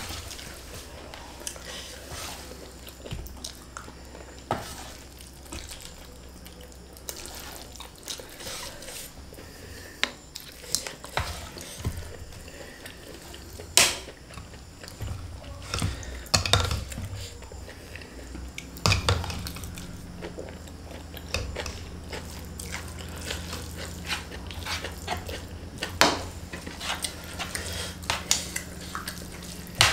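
Close-miked eating: plastic spoons and forks clicking and scraping on a metal tray and a small glass bowl, with wet mouth sounds of chewing fried flat rice noodles. The clicks come irregularly, a few of them sharper and louder.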